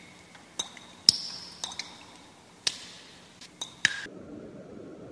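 Water dripping from a tap into a sink: about eight single drops at uneven intervals, each a sharp plink with a short ringing tone. About four seconds in, the drips stop abruptly and a steady low rushing noise takes over.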